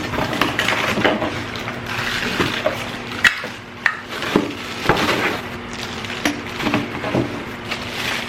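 Irregular knocks and clicks of hard plastic parts being handled and fitted while a new cordless vacuum cleaner is unpacked, over a steady low hum.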